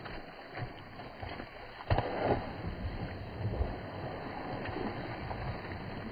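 A hooked tarpon leaping and crashing back into the water, several splashes with the loudest about two seconds in, over a steady rushing noise.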